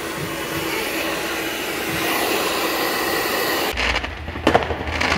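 Handheld hair dryer blowing steadily with a faint hum, cut off abruptly after about three and a half seconds. Then a low rumble and a sharp firework bang about four and a half seconds in.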